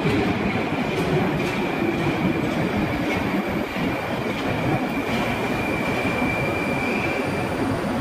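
Moscow Metro train running at the platform: a steady rumble with a thin high whine over it that stops near the end.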